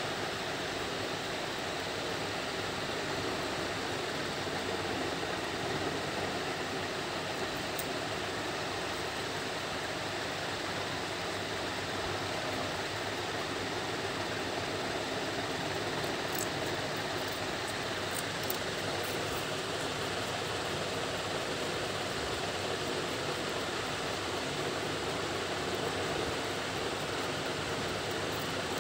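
Steady, even hiss of background noise, with a few faint ticks in the second half.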